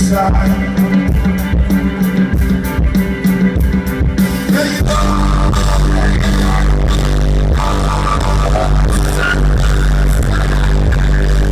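A rock band playing live with a singer: a steady, regular beat at first, then about five seconds in the full band comes in with a heavy, sustained bass underneath.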